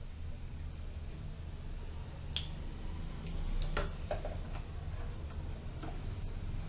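Hot ghee in an iron kadhai crackling around a freshly added bay leaf: a few sharp, scattered pops and ticks, the clearest about two and a half and about four seconds in, over a steady low hum.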